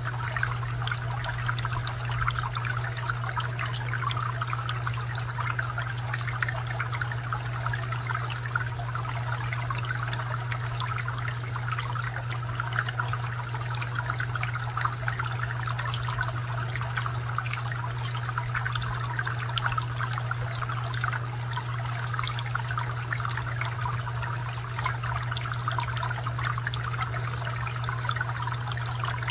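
Garden fountain water trickling and splashing steadily, with a steady low hum underneath.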